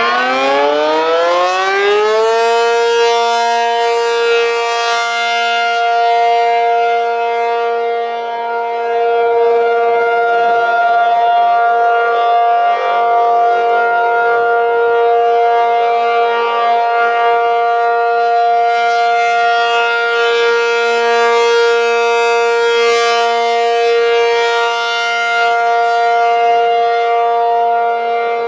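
ACA P-50 outdoor warning siren finishing its wind-up, its pitch rising for the first two seconds and then holding a steady two-note chord at full speed. The level swells and dips slightly every several seconds.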